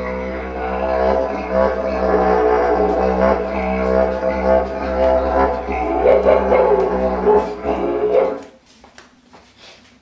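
Didgeridoo played as a continuous low drone with shifting overtones, stopping abruptly about eight seconds in.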